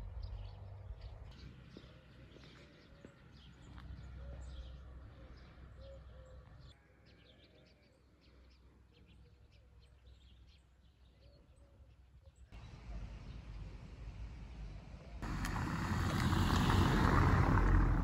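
Outdoor ambience with a low rumble and faint bird chirps, then a loud rushing noise for the last few seconds.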